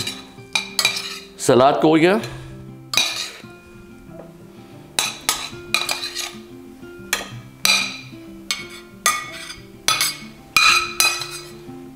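Metal spoon clinking and scraping against a stainless steel pan as braised cucumber pieces are spooned out onto a plate: a string of sharp, irregularly spaced clinks, each ringing briefly.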